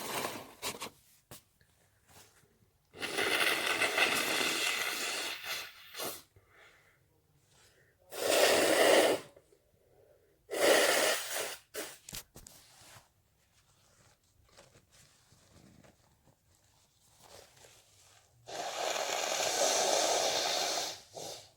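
A person sneezing and blowing their nose into a tissue, in five separate bursts with pauses between them, the longest lasting two to three seconds.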